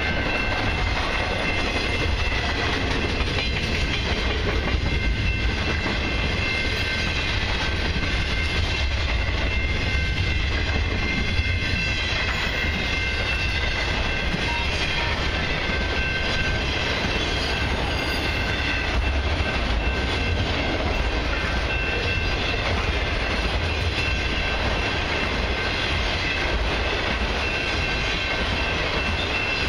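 Long freight train of double-stack intermodal cars and autoracks rolling past at a level crossing: a steady low rumble with wheel clatter over the rail joints. Several thin, steady high tones sit over it throughout.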